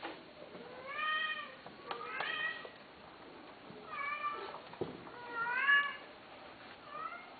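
Domestic cat meowing: five high meows, each rising and falling in pitch, about one every second and a half.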